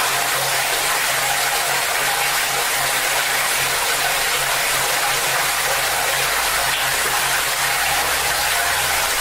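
Tap water gushing hard from a faucet into a bucket: a steady rushing splash that keeps an even level throughout, with a faint low hum underneath.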